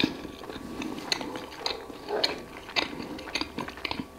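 A person chewing whole-wheat bread with honey, the mouth giving short clicks about twice a second.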